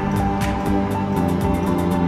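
News-channel branding theme music: sustained notes over a deep bass, with a fast ticking beat.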